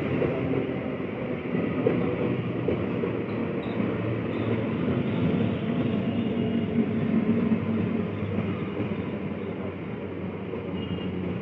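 Electric multiple-unit (EMU) local train running past on the rails: a steady rumble and rattle of the coaches with a low hum under it, easing off slightly near the end.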